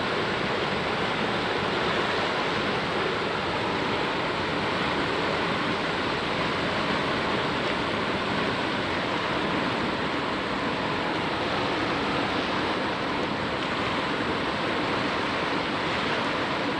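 Floodwater of the swollen South Fork of the Ninnescah River rushing in a steady, unbroken roar.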